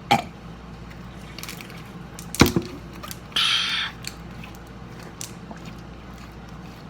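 Handling noises over a low steady hum: a click at the start, one sharp knock about two and a half seconds in, then a brief rustling burst and a few faint ticks.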